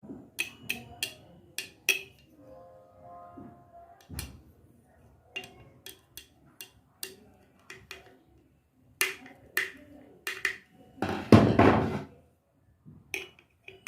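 A series of sharp clicks and taps, each ringing briefly, in small clusters. About eleven seconds in there is a louder scraping rustle lasting about a second.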